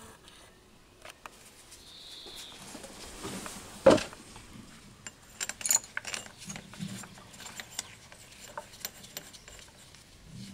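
Long steel mounting bolts clinking and scraping against the metal housing of a new air-conditioning compressor as they are fitted through its mounting holes. There is one sharp metallic knock about four seconds in, followed by a run of quick clicks.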